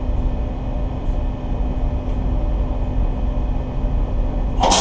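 Boat engine running steadily with a low drone; a loud hiss cuts in just before the end.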